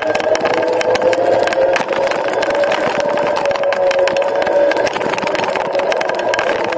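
Dualtron Eagle Pro electric scooter's hub motors whining steadily while it cruises, the pitch drifting slightly with speed, over gusty wind buffeting on the microphone.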